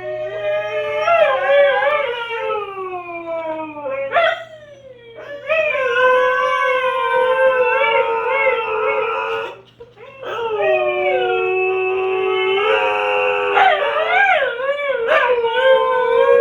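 Siberian husky howling in long, wavering calls that bend up and down in pitch, breaking off briefly about four seconds in and again near ten seconds.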